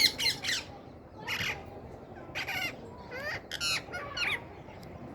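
Pet parrot squawking in a run of short, sharp calls, some in quick groups of two or three, spread over the first four seconds or so.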